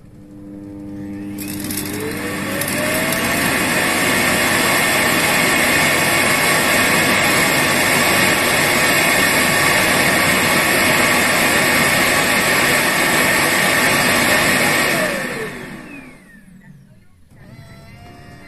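Roomba Max 705 Combo AutoWash station's suction fan emptying the robot's dust bin. It spins up with a rising whine over about three seconds, runs with a loud steady rush, then winds down with a falling whine near the end.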